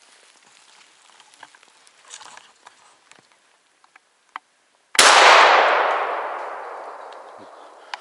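A single shotgun shot from an MP-233EA about five seconds in, its report ringing out through the forest and dying away over about three seconds. Before it there are only faint rustles and small clicks.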